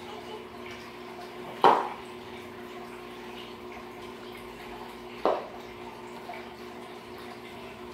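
Two sharp knocks, about three and a half seconds apart, from a spin mop being pushed across a tile floor. They sit over a steady low hum.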